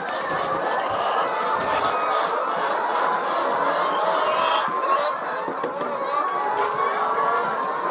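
A large flock of brown laying hens clucking and calling all at once, a dense, steady chorus of many overlapping voices.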